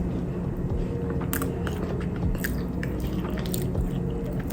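Close-up chewing and biting of a baked cookie croissant, with scattered small crunches and wet mouth clicks over a steady low hum.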